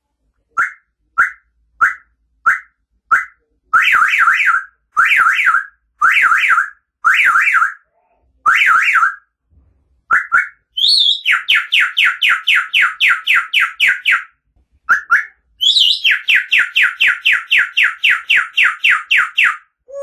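African grey parrot mimicking a car alarm. It gives five short chirps, then five warbling siren phrases, then two long runs of rapid beeps at about five a second, each run opened by a higher note.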